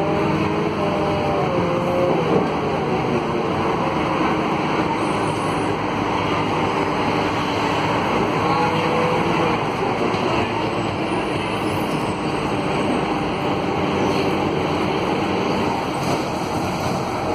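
Cabin noise of a Scania K280 city bus under way, heard from inside: the Scania DC09 five-cylinder diesel and drivetrain running steadily, mixed with road noise.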